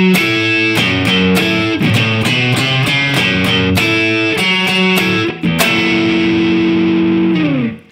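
Distorted electric guitar from a Stratocaster-style guitar, picked hard in a rock riff of struck chords and notes, with the unplayed strings muted so nothing extra rings. Near the end it holds one long note, which sags in pitch as it dies away.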